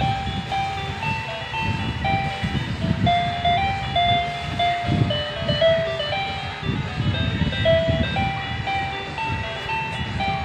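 Electronic jingle from a baby's light-up musical activity toy: a simple beeping tune of single notes playing on without a break, over low, uneven rumbling.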